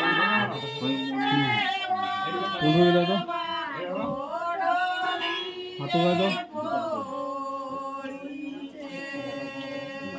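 Singing of a wedding song, with long held notes that waver and bend in pitch.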